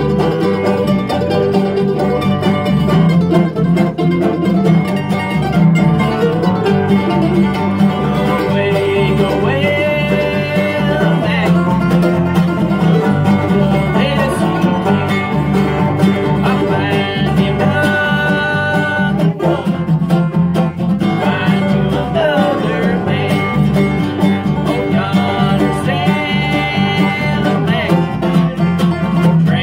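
Bluegrass band playing a tune together on banjo, mandolin and acoustic guitar, with a bass line that changes notes on a steady beat underneath.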